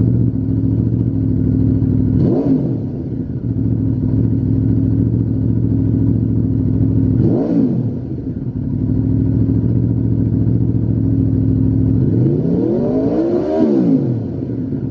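Aprilia RSV4's V4 engine through a Lextek GP1 aftermarket silencer, idling steadily. Two quick throttle blips come a few seconds apart, then near the end a longer, higher rev that rises and falls back to idle.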